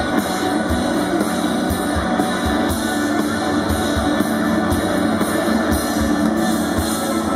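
A live rock band playing through a PA, with a sustained electric guitar to the fore and drum thumps about twice a second underneath.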